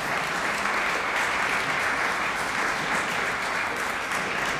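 An audience applauding steadily, many people clapping together.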